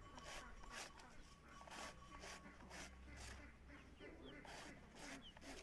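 A large knife slicing thin rounds off a peeled bamboo shoot against a wooden block: a short crisp cut about twice a second.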